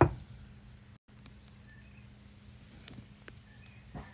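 A single sharp knock at the start, then a steady low hum with a few faint short chirps and light ticks.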